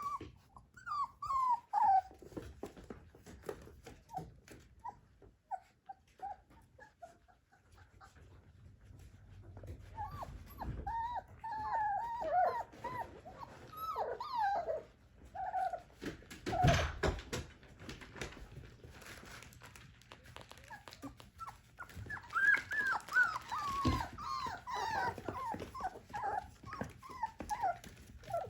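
Four-week-old puppies whimpering in short, falling cries, in bouts near the start, in the middle and near the end. A couple of knocks come in between.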